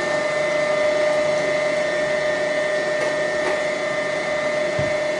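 Electric stand mixer motor running at a steady speed with a constant whine, beating butter, flour and an egg in a stainless steel bowl.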